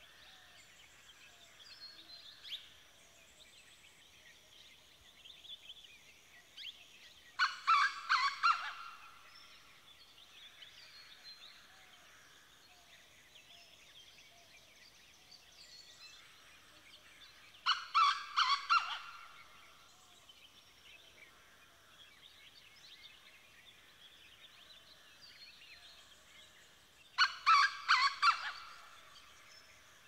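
A farmyard fowl gives a loud, pulsed call three times, roughly ten seconds apart, over a steady background chorus of small birds chirping and twittering.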